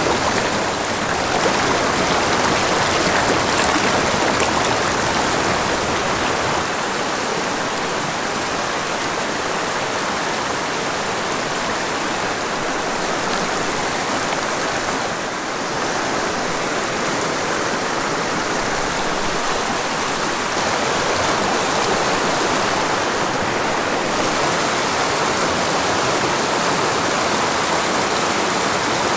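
Small mountain creek rushing steadily over rocks in shallow riffles, heard close up.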